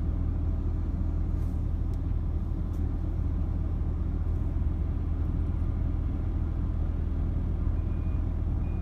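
Wille 365 multi-function carrier's diesel engine running steadily under working load, a continuous low rumble.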